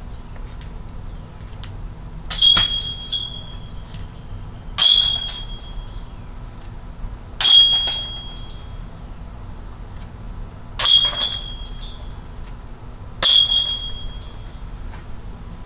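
Golf discs hitting a metal disc golf putting target (Gateway Bulls Eye) five times, about every two and a half seconds. Each hit is a sharp metallic clang with a ringing tone that dies away within about half a second.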